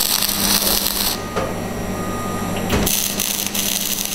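MAG (metal active gas) welding arc striking in two bursts: one of about a second at the start, then another from about three seconds in, as tack welds are laid on a steel box-section joint. A steady low hum from the welding set runs underneath.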